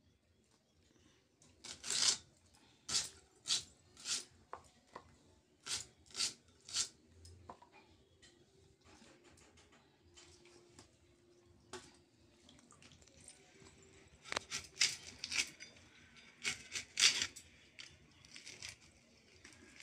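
Dry red onion skins being peeled and torn off by hand, with the onions cut on a floor-mounted blade: short papery crackles and snaps in two spells, one in the first third and one in the second half.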